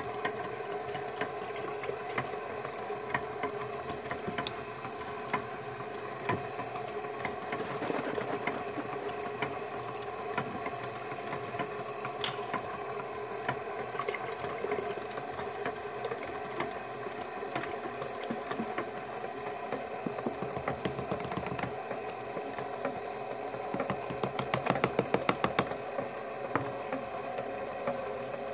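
KitchenAid stand mixer running steadily with its flat beater, stirring lye solution in a stainless steel bowl as goat milk is mixed in: a motor hum with a fine, fast rattle, briefly a little louder near the end.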